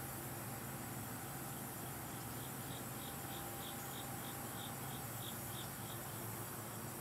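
An insect chirping in a steady run of short high notes, about three a second, starting about two seconds in and stopping near the end, over a steady outdoor hiss and a faint low hum.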